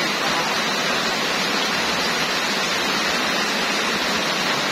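Heavy rain pouring down on pavement and roofs: a dense, even hiss that holds steady without a break.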